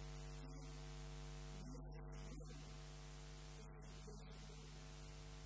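Steady electrical mains hum in the recording over faint room tone.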